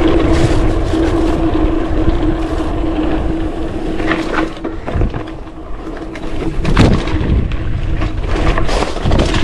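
Mountain bike ridden fast over a rough dirt trail: wind rushing over the helmet-mounted microphone and tyres on dirt, with a steady buzz through most of it and sharp knocks and rattles as the bike hits bumps, several of them in the second half.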